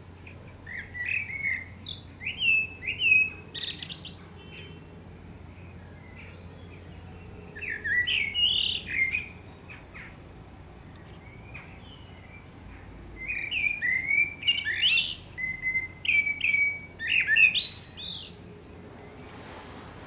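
Male Eurasian blackbird singing: three fluty, warbling phrases, each ending in a high, squeaky twitter, with pauses of a few seconds between them.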